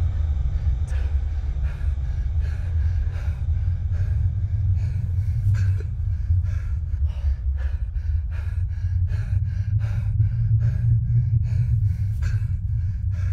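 A man's strained, gasping breaths, short and repeated, coming faster toward the end, over a steady low rumble.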